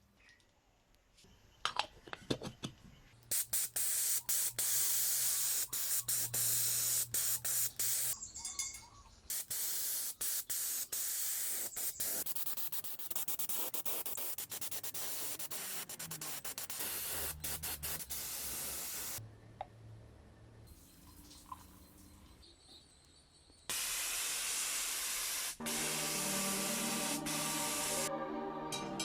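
Paint spraying, hissing in long bursts with short pauses between them, with a few clicks before the spraying starts. Background music comes in near the end.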